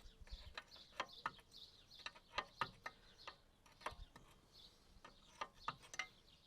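Ratchet spanner clicking in short, irregular strokes as the track adjuster's grease valve on a mini digger is backed off to let grease out and release the track tension.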